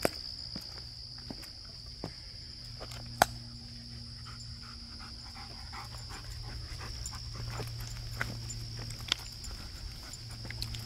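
German Shepherd panting as it trots along a forest trail, with footsteps and scattered clicks and crackles underfoot over a steady high insect drone. One sharp click stands out about three seconds in.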